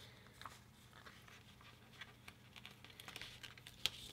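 Faint rustling and light clicks of paper planner stickers and sticker sheets being handled, with one sharper tick near the end.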